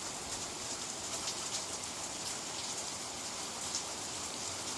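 Steady patter of light rain and dripping water, a constant hiss with small scattered drop ticks.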